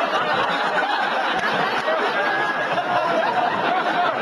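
Audience laughing, many voices laughing together.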